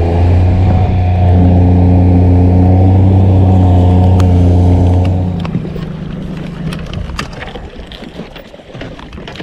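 Small outboard motor running steadily at speed, driving a small fishing boat across the water. About five seconds in the engine note drops away, leaving the rush of water and wind as the boat slows, with a few light knocks near the end.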